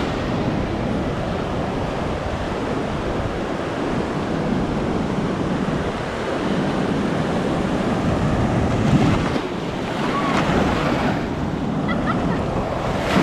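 Ocean surf washing onto the beach, swelling as waves break, with wind buffeting the microphone.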